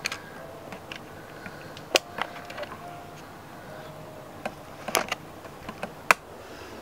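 A few sharp clicks and taps from handling a hand-held camera, loudest about two, five and six seconds in, over a quiet room.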